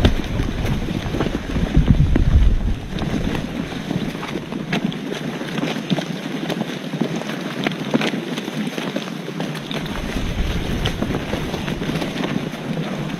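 Wind buffeting an outdoor microphone: a steady rushing hiss with heavy low rumbling gusts in the first few seconds and again near the end, and scattered small clicks and knocks.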